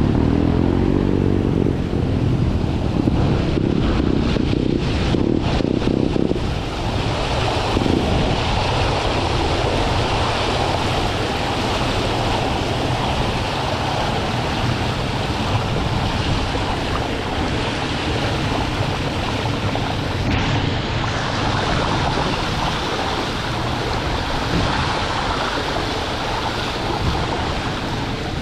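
Mountain bike tyres ploughing through floodwater: a continuous rush and splash of spray from the front wheel, with wind noise on the microphone.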